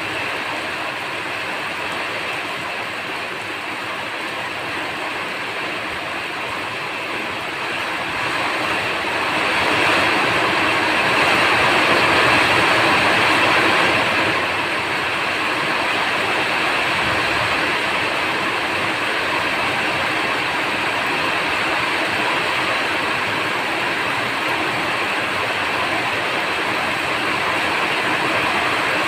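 Steady rain falling, a dense even hiss that grows heavier for a few seconds around the middle and then eases back a little.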